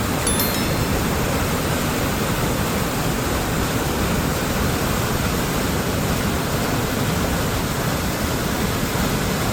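Christine Falls, a waterfall, rushing steadily.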